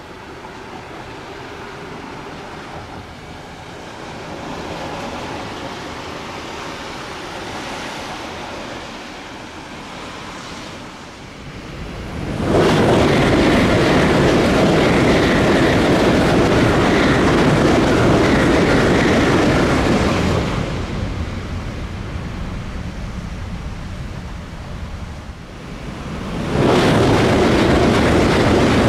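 Shinkansen bullet train passing at high speed: a rushing noise builds slowly for about twelve seconds, turns suddenly loud, with a high whine in it, as the train goes by for about eight seconds, then falls away. Near the end a second loud rush starts abruptly.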